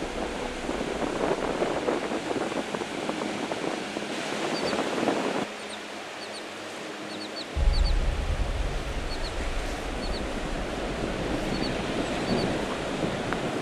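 Ocean surf and wind on the microphone, with short high seabird calls, often in pairs, repeating from about four seconds in. A low rumble of wind on the microphone starts near the middle.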